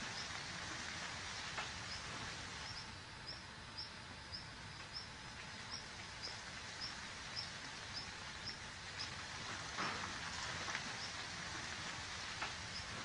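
A rabbit digging a burrow in loose soil, scratching and scraping earth with faint, scattered scratches over a steady outdoor hiss. A short, high chirp repeats about twice a second through most of it.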